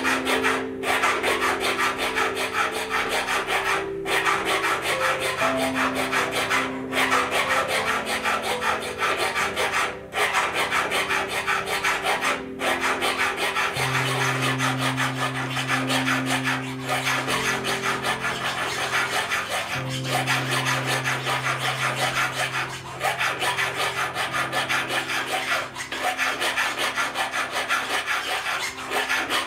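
Small hand file rasping back and forth across a 14k gold ring braced on a wooden bench pin, quick steady strokes shaping the band, with a brief pause every few seconds.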